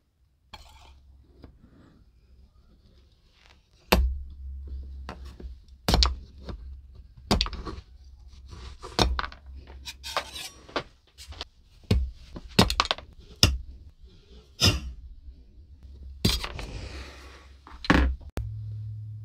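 Small hard parts and tools being handled on a workbench: a string of separate sharp clicks, taps and clinks, with a couple of short scraping sounds, over a steady low hum.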